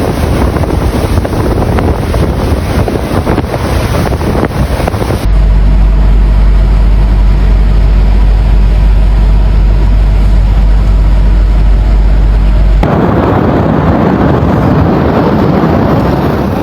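Loud, steady rushing of strong wind buffeting the microphone in a snowstorm, changing abruptly twice; in the middle stretch a heavy deep rumble dominates.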